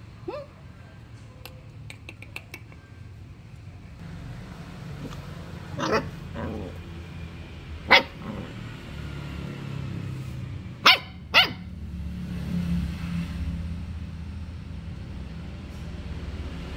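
A dog barks a few times: single sharp barks about six and eight seconds in, then a quick pair about three seconds later. A low steady hum runs underneath from a few seconds in.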